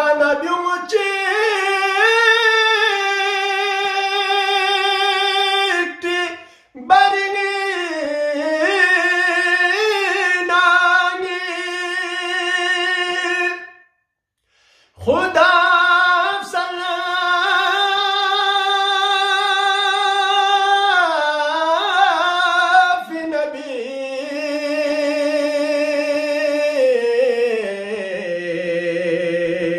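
A man singing a Balti qaseeda unaccompanied, in long held, wavering, high-pitched phrases. He breaks for short breaths about six and fourteen seconds in, and the last phrase sinks lower near the end.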